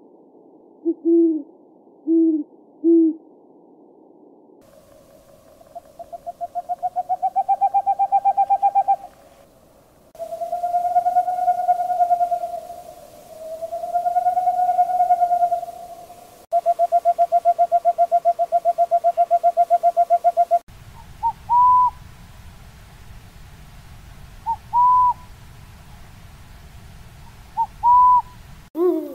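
A run of owl calls spliced from several recordings. First come three short low hoots, then a trilled call rising in pitch, two long drawn-out notes, and a fast even trill. Near the end there are three short higher hoots over a faint rumble.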